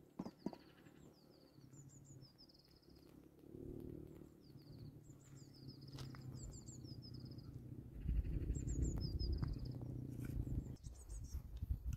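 Small birds chirping in quick, repeated high phrases throughout, over faint low animal or voice sounds. A louder low rumble comes in about eight seconds in and lasts a few seconds.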